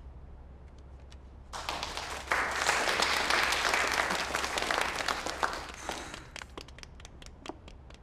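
A small audience applauding: the clapping starts about a second and a half in, swells, then thins out to a few scattered claps and stops.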